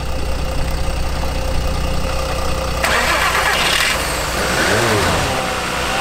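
A donor car's engine idles steadily while jump leads are connected. About three seconds in, the flat-battery Ford Galaxy's engine cranks and fires on the jump start, catching and rising in pitch briefly.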